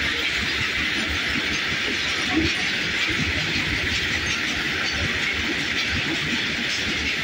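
Loaded, tarpaulin-covered open freight wagons rolling past: a steady rumble and rattle of steel wheels on the rails, with a hiss over it.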